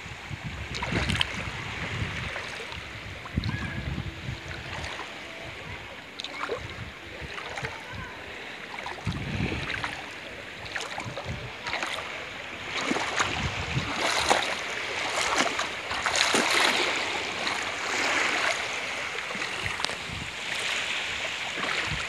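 Shallow seawater sloshing and splashing around the legs of someone wading over a pebble bottom, in uneven swishes that get busier in the second half.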